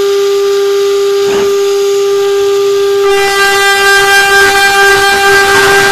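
High-speed CNC spindle turning an 8 mm two-flute end mill at 24,000 rpm through metal, making a steady high whine. From about three seconds in, the cut turns louder and harsher. Both flutes of the cutter are broken, which the machinist blames for the noise as it plunges.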